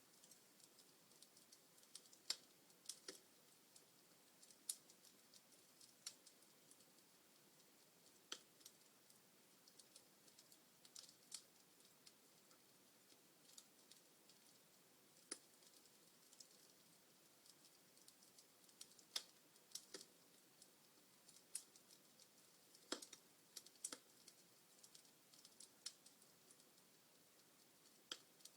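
Wood fire burning in a fireplace, faintly crackling: scattered sharp pops and snaps at irregular intervals over a soft steady hiss.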